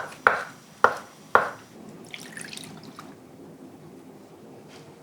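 Knife chopping on a cutting board: three strokes in the first second and a half, then it stops.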